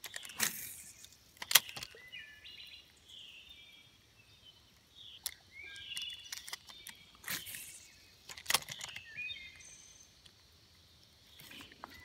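Birds chirping in short high calls, over a few sharp clicks and swishes from a spinning rod and reel being cast and reeled; the loudest is a single sharp click about a second and a half in.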